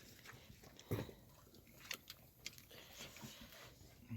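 Someone eating: faint chewing and crunching with scattered sharp clicks, and a louder dull thump about a second in.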